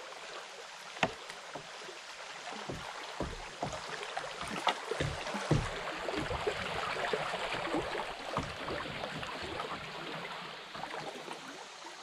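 Kayak drifting through a shallow creek riffle: water rushing and rippling around the hull, louder through the middle and easing near the end. Scattered knocks and a few dull thumps against the boat come in a cluster a few seconds in.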